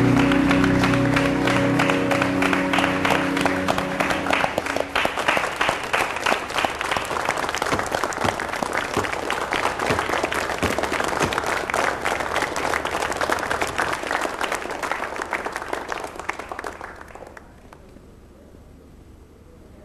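Audience applause, many hands clapping, over closing music that fades out in the first few seconds. The clapping dies away about three quarters of the way through, leaving only a faint hiss.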